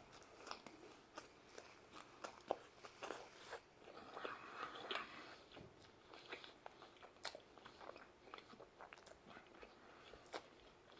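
Faint chewing and biting of pizza: irregular small crunches and mouth clicks, a little louder about four to five seconds in.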